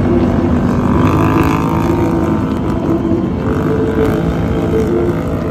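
Quad ATV engines running at a steady cruising speed, a loud even drone with a held pitch over a low rumble.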